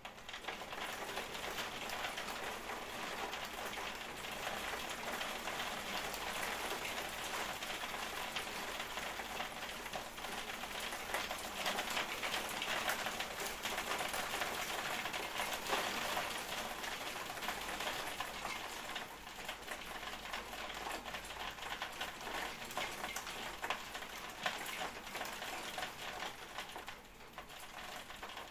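Rain falling steadily, a dense patter of many small drops hitting a surface, swelling a little in the middle and easing slightly near the end.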